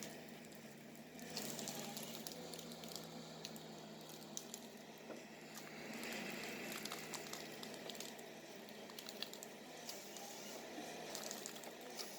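Faint steady hum of a distant forestry machine's diesel engine, with irregular crunching and crackling close by.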